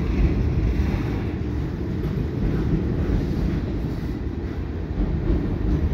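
Freight cars, a transformer-loaded flatcar and tank cars, rolling over a steel girder railway bridge: a steady low rumble.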